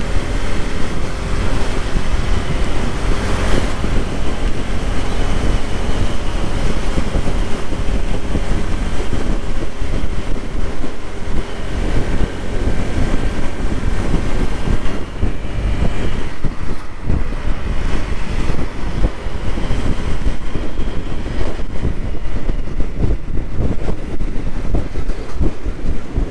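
Steady wind rush on a helmet-mounted microphone, over the engine and road noise of a Honda PCX scooter riding at town speed.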